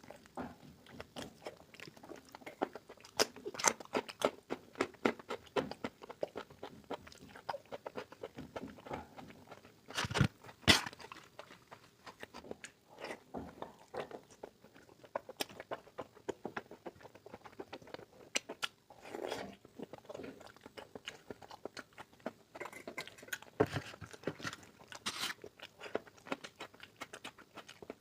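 Close-up chewing of mutton curry: irregular wet smacking and crunching bites, the two loudest about ten seconds in.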